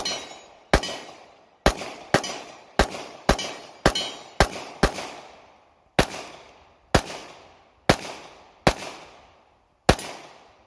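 AREX Rex Delta 9mm striker-fired pistol firing about fourteen shots in a steady string, roughly one a second or a little faster, with a short pause around the middle. Each sharp crack trails off quickly.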